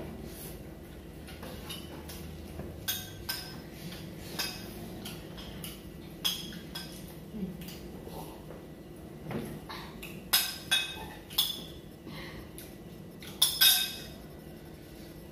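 Plates, bowls and spoons clinking at a dinner table: scattered light clinks and taps, with a louder run of clinks about ten to eleven seconds in and two sharp ones near the end.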